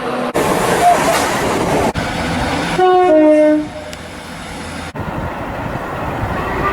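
Passing-train noise in short spliced clips, with a train horn sounding a brief chord that steps down in pitch about three seconds in, the loudest part, and another horn starting softly near the end. The clips change abruptly several times.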